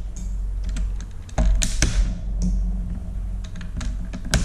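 A string of sharp, irregular clicks and taps from hands handling and levering at the parts of a car instrument cluster, over a low rumbling handling noise.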